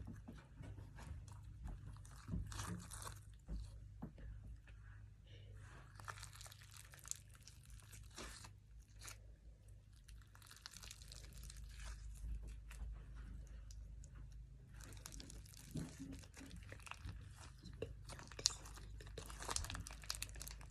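Slime being squished and played with by hand: faint, irregular clicks and rustling noises over a steady low hum.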